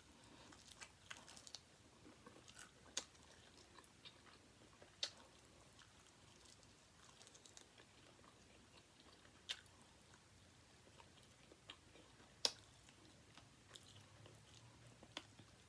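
Faint chewing of crispy chicken wings, with about half a dozen short, sharp crunches scattered through it.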